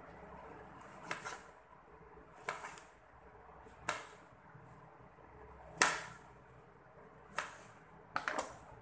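Kitchen knife slicing small eggplants on a wooden cutting board: a series of separate sharp knocks as the blade meets the board, a second or two apart, with a quick pair near the end.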